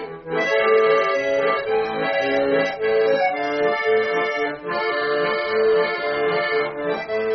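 Bayan (Russian button accordion) playing an instrumental passage between sung lines: held chords over a sustained low note, with a melody moving above them.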